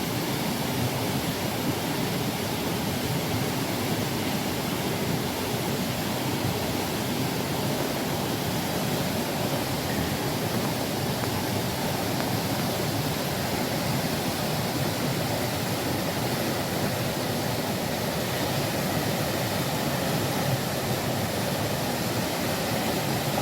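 Steady rush of a waterfall, its water falling and splashing without a break.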